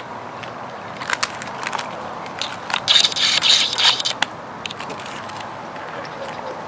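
Plastic packaging crinkling and a small metal tin clicking as a tin survival kit is handled, a run of crackles and clicks that is densest and loudest about three to four seconds in.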